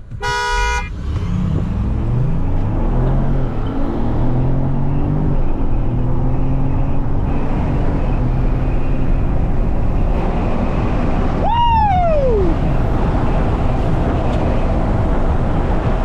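From inside a pickup truck's cabin: a short horn toot at the start, then the engine revving and pulling up through several gears as the truck accelerates, settling into steady engine and road noise. About eleven and a half seconds in, a single loud tone falls in pitch over about a second.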